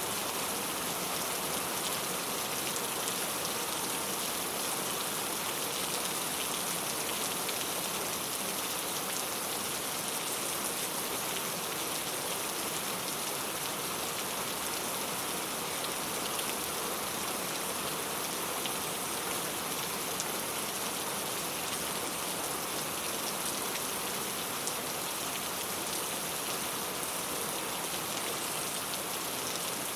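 Steady rain falling on a clay-tile roof, a constant patter of drops with no let-up.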